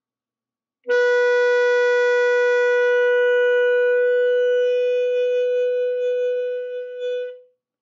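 Saxophone holding a long tone on concert B, about 495 Hz, rich in overtones, starting abruptly about a second in. Partway through, the player bites down on the mouthpiece, a thinning of the sound, and the note wavers and tapers off near the end.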